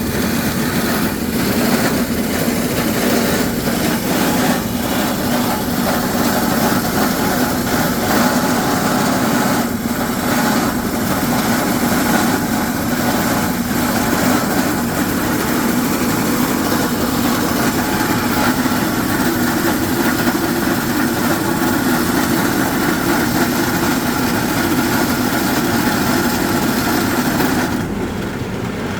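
Hydraulic crawler rock drill rig running steadily, an engine note with a hiss above it; the hiss drops away and the sound eases slightly about a second before the end.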